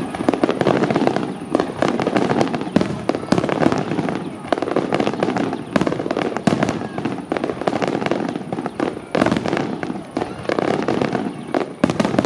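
A dense barrage of fireworks going off, many bangs and crackles overlapping in quick succession without a pause.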